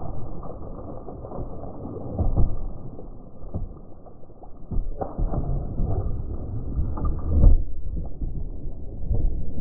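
Muffled low rumble of wind on the microphone, with irregular thumps and knocks, the loudest about a quarter of the way in and again about three-quarters through.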